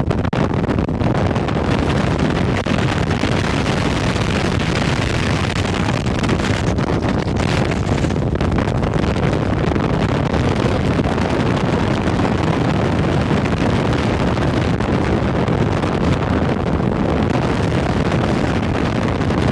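Steady rush of wind on the microphone and water along the hull of a Falcon 22 catamaran running at about 25 mph through 1-to-2-foot chop, with its engine running beneath.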